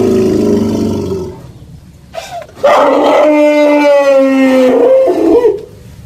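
Dinosaur roar sound effects. One roar trails off in the first second, then after a short pause a second long, high, pitched roar with a slightly falling tone lasts about three seconds.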